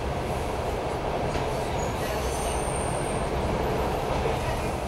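Steady rumble of a suburban passenger train heard from inside the carriage as it runs out of the station past other trains, with a faint, thin high squeal for about a second around the middle.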